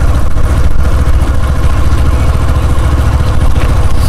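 Single-cylinder commuter motorcycle running steadily at low speed, heard from the rider's chest-mounted phone with heavy wind rumble on the microphone.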